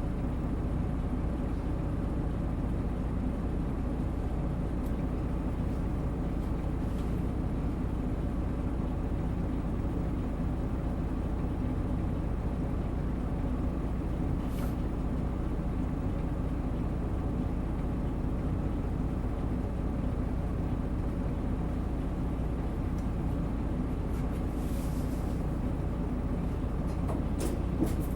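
Isuzu Erga Mio bus's inline-six diesel engine running at a steady, unchanging pitch as the bus travels, with a few faint brief clicks.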